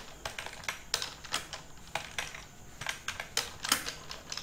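Keys clicking on a computer keyboard as someone types, in irregular runs of a few keystrokes a second.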